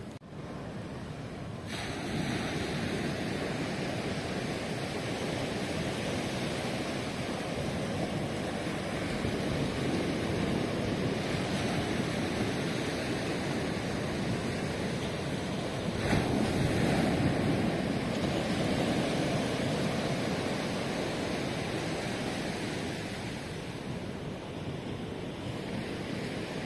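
Ocean surf: waves breaking and washing up the shore in a continuous rush. It swells louder several times, most of all with a sudden surge a little past halfway.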